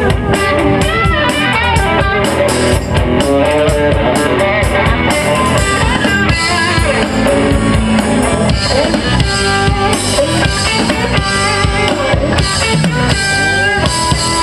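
Live rock band playing an instrumental passage: electric guitars and bass over a drum kit, amplified through PA speakers.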